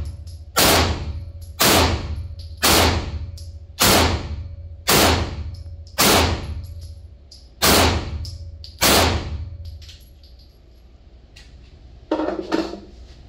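SIG P320 pistol fired eight times, about one shot a second, each shot ringing out in the enclosed range lane. After the last shot come a few faint clicks and a single thump near the end.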